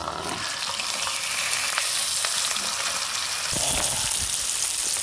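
Food sizzling in a hot pan: a dense, crackling hiss much like rain, growing louder about three and a half seconds in, with a few low knocks after that.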